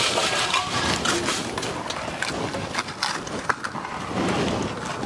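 Dry Maggi instant noodle blocks crackling and crumbling as they are tipped into a pot of boiling vegetable broth, with a few sharp clicks in the middle as a metal ladle knocks against them.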